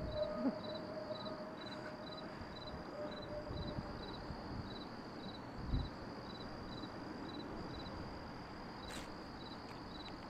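Crickets chirping in even pulses about twice a second over a steady high trill, with a low background rumble. A faint held low tone fades out in the first few seconds.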